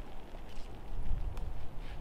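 Wind rumbling on the microphone, with a few faint clicks near the end.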